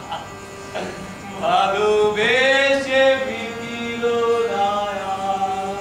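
A man singing a drawn-out melodic line: his voice comes in about a second and a half in, rises and holds a long note, then continues lower, over a steady drone.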